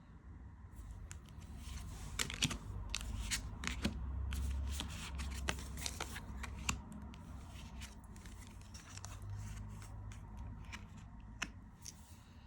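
Tarot cards being handled and shuffled: a rapid run of card slaps and flicks, busiest in the first half and thinning out toward the end.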